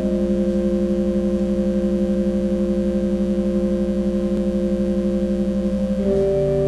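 Organ playing a slow prelude of held chords with a quick tremolo waver, moving to a new chord near the end.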